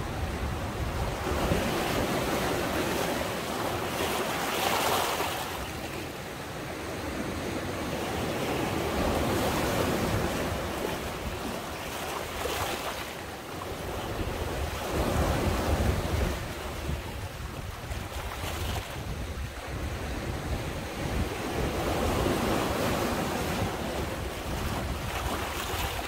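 Sea waves surging and washing back, swelling and ebbing every few seconds, with wind buffeting the microphone.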